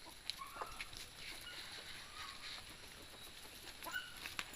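A couple of faint, short farm animal calls over a quiet outdoor background, one about half a second in and one near the end.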